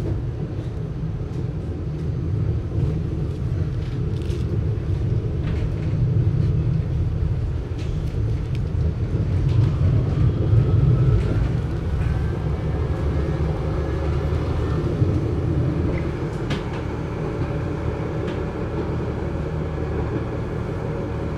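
GT6M low-floor tram running, a steady muffled rumble. About halfway through, a faint whine rises in pitch and then holds.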